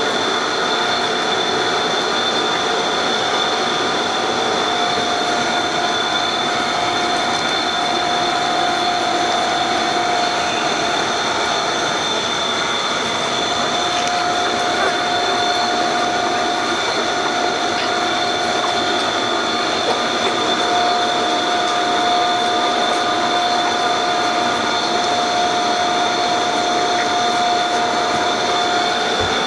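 Steady machine noise with a constant whine over a hiss, unchanging throughout.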